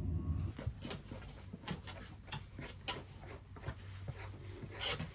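A dog being rubbed down on a hard floor: irregular clicks of its claws on the tile, with fur and jacket rustling and a short breathy noise near the end. A low engine rumble cuts off about half a second in.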